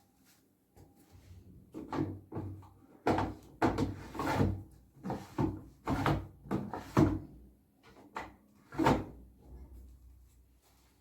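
Irregular knocks and clatter of hard objects being handled, about a dozen strikes over several seconds, the loudest ones in the middle.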